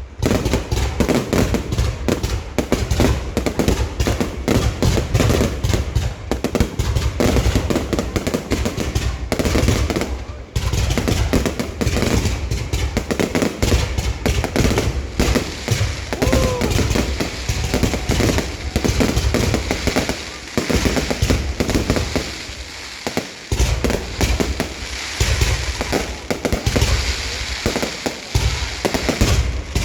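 Fireworks display: a dense, near-continuous barrage of bangs and crackling with deep booms, thinning briefly about ten seconds in and again a little past twenty seconds.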